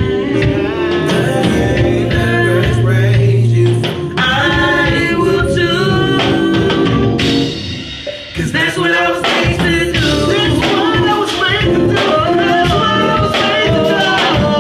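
Gospel singing, voices sliding between held notes over a sustained low backing. The sound dips briefly about eight seconds in, then the singing resumes.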